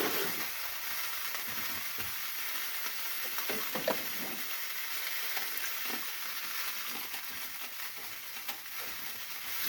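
Steady sizzling hiss from the water-filled canning pot holding the pickle jars, with a few light knocks about four seconds in.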